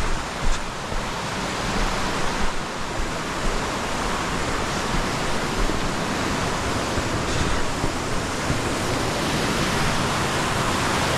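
Waterfall rushing: water pouring onto rocks in a steady, unbroken hiss.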